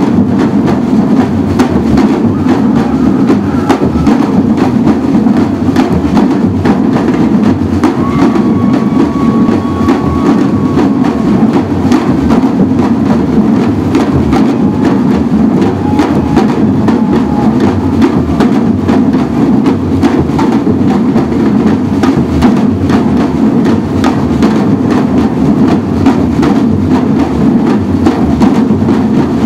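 Samba batucada drum ensemble playing: large surdo bass drums and smaller snare-type drums struck with sticks in a loud, dense, unbroken rhythm.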